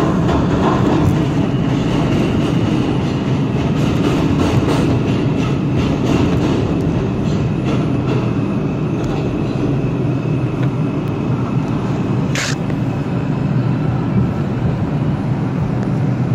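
New York City Subway 4 train running through a tunnel: a steady, loud rumble of wheels on rail with faint repeated clicks. A short high squeal comes about twelve seconds in.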